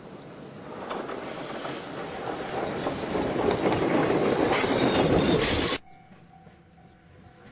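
Small electric railcar of the Choshi Electric Railway running past close by, its wheels and running gear rumbling louder as it approaches, with a high wheel screech as it passes. The sound cuts off suddenly about six seconds in, leaving a much quieter background.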